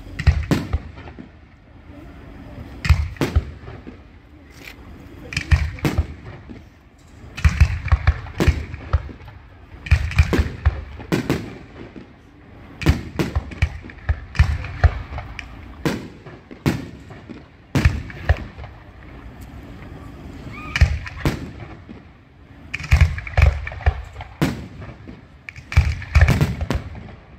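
Fireworks and firecrackers going off: many sharp bangs in quick clusters every few seconds, some followed by crackling.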